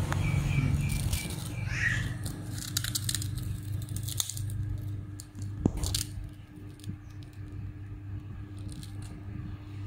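A child biting and crunching crispy fried crackers, with crackly bites scattered through the first six seconds and fewer after, over a steady low hum.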